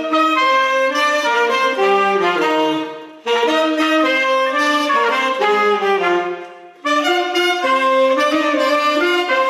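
A small Oaxacan wind band playing a son, with several wind instruments sounding melody lines together. The phrases break off briefly about three seconds in and again just before seven seconds.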